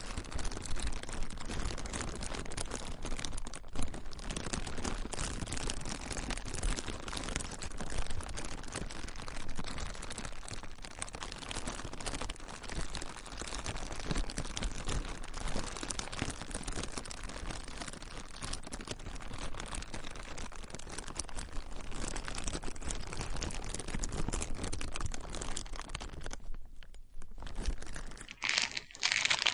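Plastic being crumpled and crinkled continuously, a dense stream of crackles. Near the end it dips briefly, then a brighter, sharper crinkling starts.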